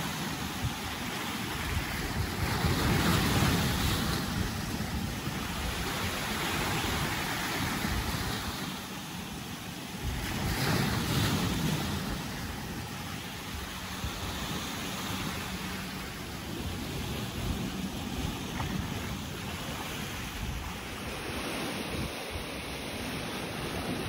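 Ocean waves washing and breaking against a rocky shore, a steady surf rush that swells in two louder surges, a few seconds in and again about eleven seconds in. Wind buffets the microphone underneath.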